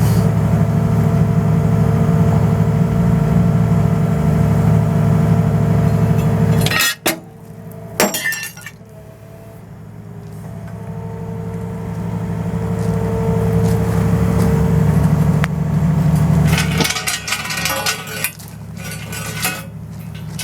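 Rent Demolition RS18 hydraulic metal shear at work: a steady loud hum of the carrier's engine and hydraulics with a whine, then two sharp snaps about 7 and 8 seconds in as metal is cut. The hum builds again under load and gives way to clattering clinks of metal pieces near the end.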